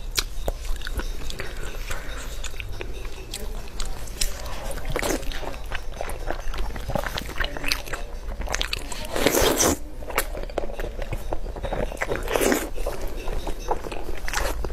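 Close-miked biting and chewing of braised pork knuckle: irregular mouth smacks and clicks, with a louder stretch about nine seconds in and another near twelve seconds.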